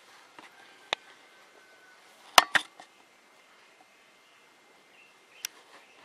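Quiet room hiss broken by a few sharp clicks or knocks: one about a second in, a louder close pair about two and a half seconds in, and one more near the end.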